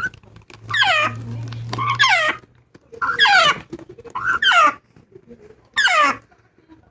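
Young African grey parrot giving repeated food-begging calls while being hand-fed: five short squawks, each falling in pitch, about one to one and a half seconds apart.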